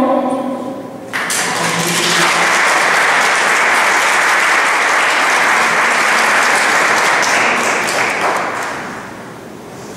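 The last sung note of a children's choir dies away, then an audience breaks into applause about a second in. The clapping holds steady and fades out near the end.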